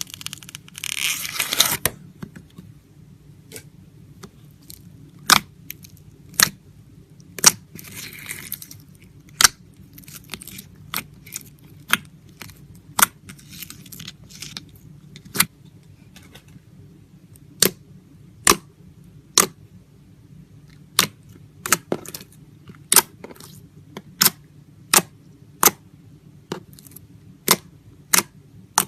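A brief rustling, tearing noise near the start, then a run of sharp clicks or snaps at uneven intervals, roughly one a second, over a steady low hum.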